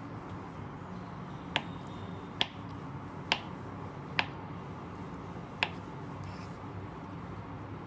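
Kitchen knife slicing through a block of tofu, the blade tapping the wooden cutting board with each cut: five sharp taps, roughly a second apart, the last after a slightly longer pause.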